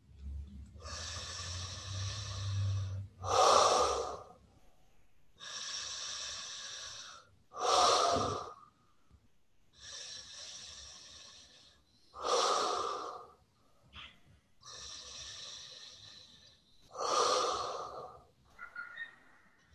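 A person breathing long and deep through the mouth through the small opening between the thumbs held to the lips. Four cycles: each a long, airy breath of about two seconds followed by a shorter, louder one, with short pauses between.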